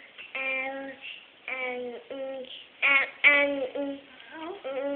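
A toddler's high voice babbling in sing-song toddler speech, a string of short held syllables with brief pauses between them.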